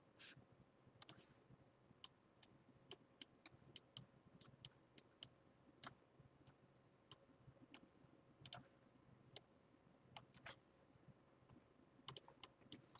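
Faint, irregular clicks of a computer mouse, dozens of them spaced unevenly, over near silence.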